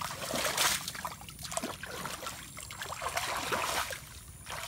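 Water splashing and sloshing in a shallow muddy pool as hands churn through it while groping for fish, in irregular surges, loudest about half a second in and again around three seconds in.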